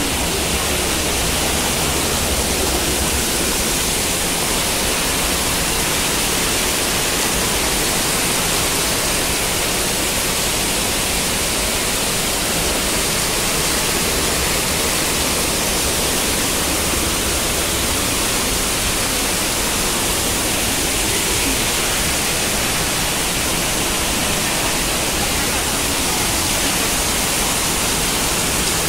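Muddy floodwater rushing past: a loud, steady, even rushing noise with no breaks.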